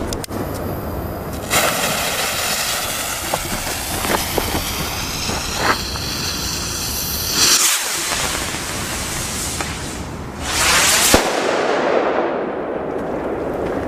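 Trueno bang rocket (knalpijl) being set off: a hissing whoosh begins about a second and a half in and runs for several seconds, then comes a pop. A louder rushing burst follows near the end and closes with a sharp crack.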